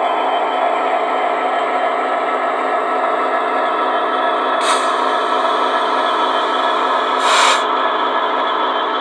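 Model railway locomotive running on the layout: a steady mechanical hum and whir. Two short hisses cut in, the second, longer one about two and a half seconds after the first.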